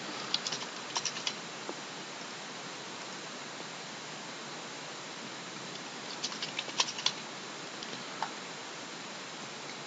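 Two short bursts of typing on a computer keyboard, one near the start and another about six seconds in, over a steady faint hiss.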